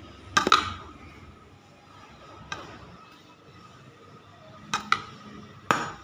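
Steel spoon knocking against the plastic jar and bucket while chili powder is spooned into the jar: a pair of sharp clinks about half a second in, a lighter one a couple of seconds later, and three more near the end.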